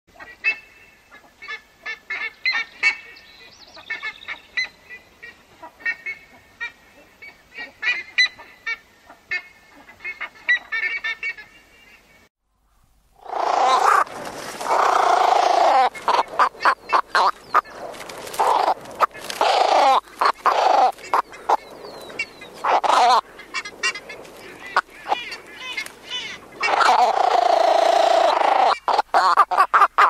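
Ibises calling, in two recordings. First comes a series of short, fairly faint calls repeated at an uneven pace. After a brief silence, about thirteen seconds in, a much louder stretch of harsh calls follows in rapid succession, many overlapping, as from a flock.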